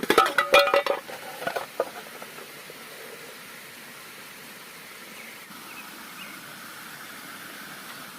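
Metal clinks and clatter of a military mess-tin pot and lid for about two seconds, briefly ringing, then a steady rush of stream water.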